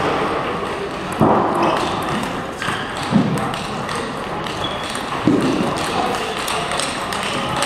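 Table tennis rally drill: celluloid-type balls clicking off rackets and the table, with heavier thuds about every two seconds, over the steady background noise of a large hall.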